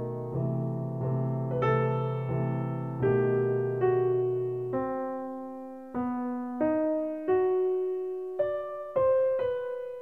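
Solo piano background music: slow, separately struck notes, with chords under the melody at first and a single line of notes from about five seconds in.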